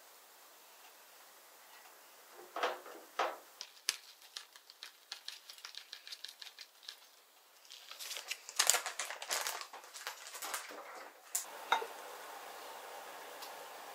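Kitchen handling sounds of plating food: two sharp knocks on crockery, a run of quick light ticks, and a denser clatter. Near the end a ceramic lid knocks as it lifts off a clay pot, followed by a steady soft hiss.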